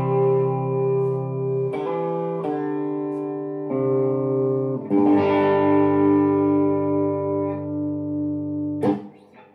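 Harley Benton SC-500 Les Paul-style electric guitar with humbucker pickups, played through a Vox AC30 valve amp turned up a little. Strummed chords are left to ring and change several times. A chord struck about five seconds in rings for about four seconds and is cut off sharply near the end.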